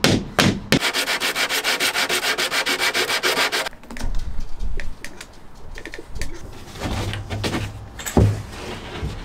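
A hammer knocking a wood block against the edge of a plywood floor board, striking about three times a second in the first second. Then comes a fast, even rasping rhythm of about ten strokes a second for some three seconds, followed by quieter scattered knocks and one heavy thud near the end.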